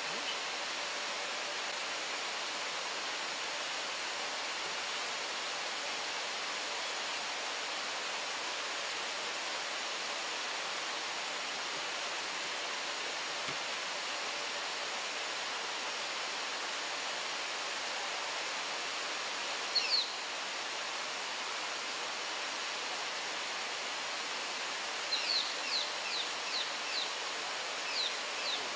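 Steady hiss of running water. A bird gives a couple of short high chirps about two-thirds of the way through, then a quick series of short, falling chirps near the end.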